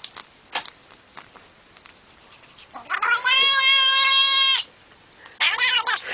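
Domestic cat making a long, steady, drawn-out yowl lasting about a second and a half, starting about three seconds in, then a shorter wavering call near the end.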